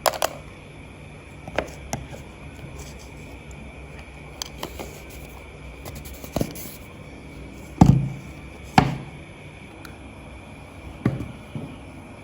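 A series of scattered knocks and thumps, eight or so at irregular intervals, the loudest two near the middle, over a steady background hum.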